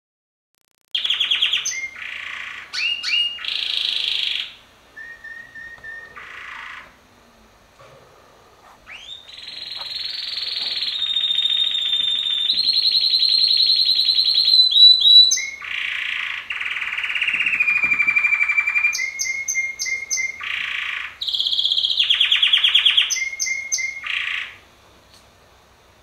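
Male domestic canary singing a long song of rapid trills and rolling phrases, with a short pause about a third of the way through; the song stops shortly before the end.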